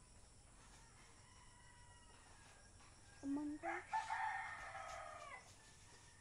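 A rooster crowing once, about three seconds in: two short low notes, then one long drawn-out note that falls away at the end.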